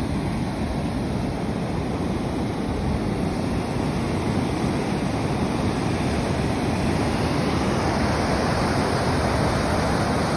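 Steady rush of falling water, getting a little louder about three seconds in.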